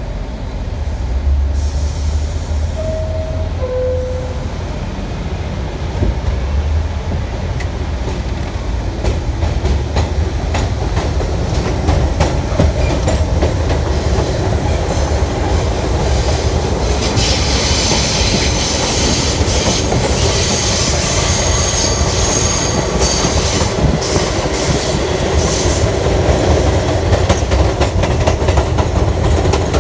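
Elevated subway train heard from inside the car as it leaves a station: a two-note falling chime about three seconds in, then a low rumble that builds as the train gets under way. Wheels clack over rail joints, and a high wheel squeal comes in around the middle and fades near the end.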